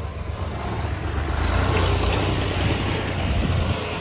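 Tractor diesel engine running with a steady low rumble, getting louder about a second and a half in.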